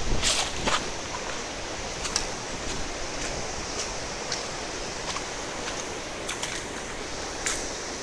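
Steady rushing of a fast, swollen whitewater river and waterfall spray, with scattered short sharp ticks.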